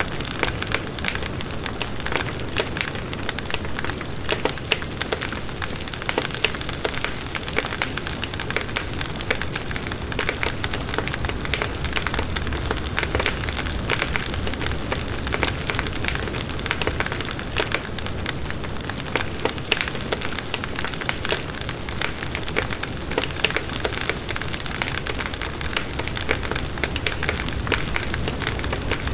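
Wood bonfire burning, with steady crackling and frequent sharp pops over a low, even rush of flame.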